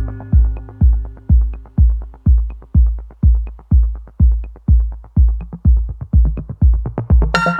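Electronic music with a steady, deep kick drum beating about twice a second; a bright synth layer comes in near the end.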